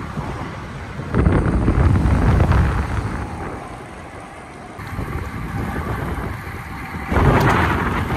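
Wind buffeting the microphone of a camera on a road bike riding at speed, a rushing low rumble that swells loud about a second in, eases off around the middle, and surges again near the end.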